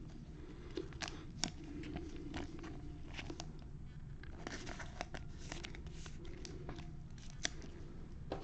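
Trading cards and pack wrapper being handled: crinkling, rustling and scattered small clicks and snaps, over a low steady hum.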